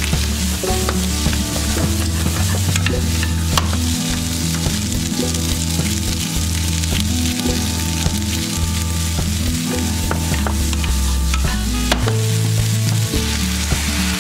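Rice, onion and bell pepper strips sizzling as they stir-fry in a frying pan, with a wooden spoon stirring and knocking lightly against the pan now and then.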